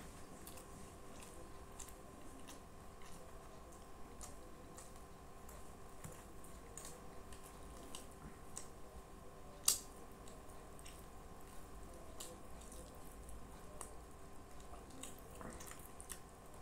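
Close-miked eating sounds from someone eating rice, curry and naan by hand: chewing and many small wet mouth clicks, with one sharper click near the middle.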